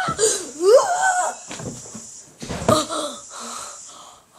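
A boy's voice making wordless, wheezy squeals: two rising-and-falling cries in the first second or so, then a few breathy gasps that trail off.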